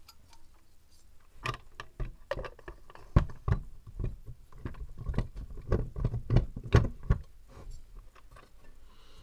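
Cast aluminium block of a GX200-clone single-cylinder engine being fitted by hand back over its crankshaft and ringless piston: a run of irregular metal knocks and clunks as the parts meet, two of them louder than the rest.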